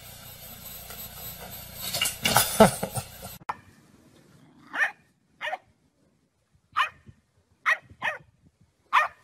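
A puppy barking in short, high yips, about six of them with pauses between. They are preceded about two seconds in by a brief loud burst of noise.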